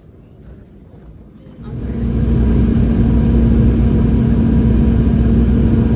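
Quiet terminal ambience, cut off about one and a half seconds in by the loud, steady rumble and hum of a jet airliner's cabin in flight.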